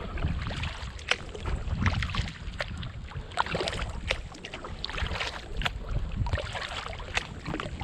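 Kayak paddle strokes: water splashing and dripping off the blades in quick irregular clicks and trickles, over a low rumble.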